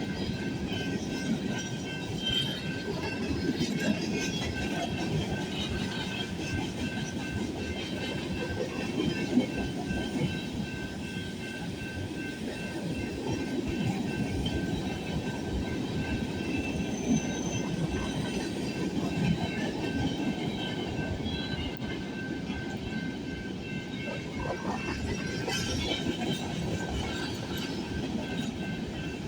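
Freight train cars rolling past, a steady rumble with wheels clacking over the rail joints, and faint steady high tones ringing above it.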